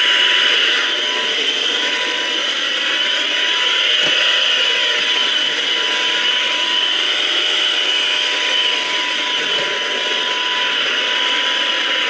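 Ultenic U11 Pro cordless stick vacuum running steadily, a high motor whine over a rushing airflow hiss.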